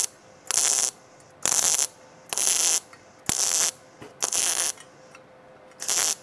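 MIG welder arc crackling in about six short bursts of under half a second, roughly one a second, with a longer pause near the end: the torch trigger pulsed on and off to stitch-weld thin sheet metal into a fish-scale bead.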